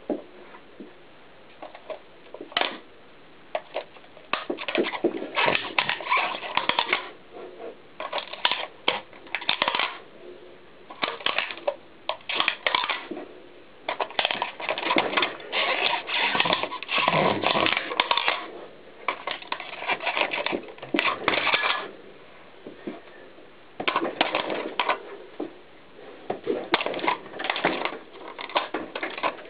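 A clear plastic audio-cassette case cracking and crunching under a knobby mountain bike tyre pressed and rolled over it, in repeated irregular bouts of crackling with short pauses between them.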